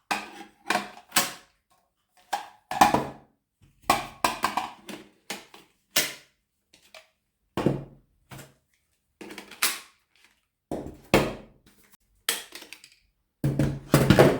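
Plastic vacuum attachments and wands being snapped on and pulled off: a string of separate clicks and knocks with short gaps between them, the loudest near the end.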